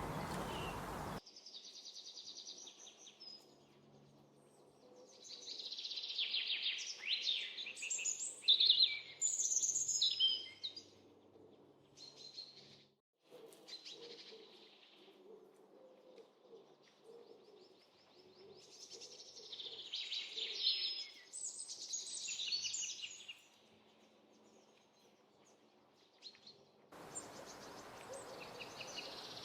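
Small songbirds chirping and twittering in quick high trills, in two long busy bouts with scattered single chirps between. The background hiss changes abruptly about a second in and again near the end.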